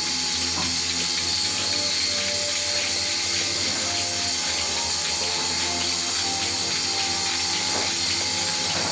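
Milking machine running: a steady hiss with a low hum under it from the vacuum line and pulsators, with no break.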